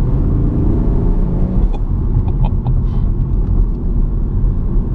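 BMW M140i's turbocharged 3.0-litre straight-six running under way, heard inside the cabin as a heavy low engine and road rumble. A few short sharp clicks come about two seconds in.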